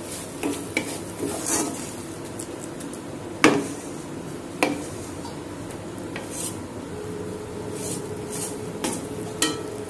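Wooden spatula stirring and scraping a thick, nearly cooked coconut and sugar mixture around a metal kadai, with scattered sharp knocks of the spatula against the pan, two louder ones a second apart near the middle, over a faint sizzle.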